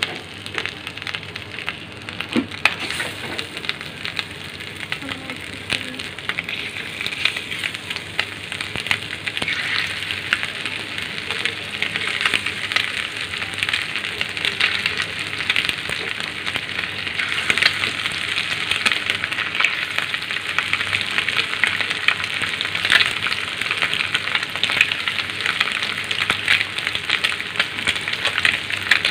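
Besan-coated silver anchovies shallow-frying in hot oil on an iron tawa: a dense crackling sizzle that grows louder over the first ten seconds or so as fish go into the oil, then holds steady.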